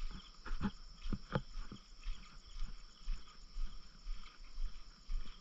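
Night insects, crickets, chirping in a steady high trill. A few soft knocks come in the first couple of seconds.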